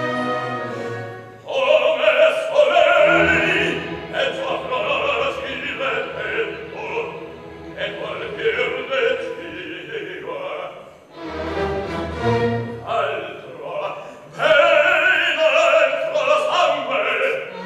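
A solo operatic baritone sings with an orchestra. The voice comes in about a second and a half in, over a held orchestral chord, and pauses briefly twice later on.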